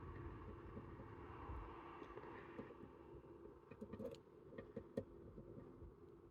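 Faint scattered clicks and ticks of a wire pick working the pins of an axial lock, starting about halfway through, over a low steady hum.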